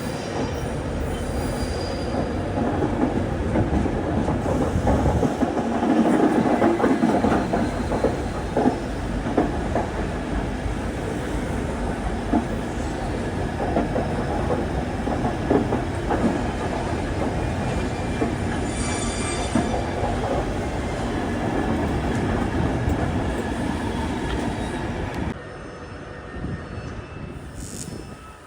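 A train running past close by, its wheels clicking over rail joints under a heavy rumble, with a brief high wheel squeal about two-thirds of the way through; the noise drops off sharply near the end.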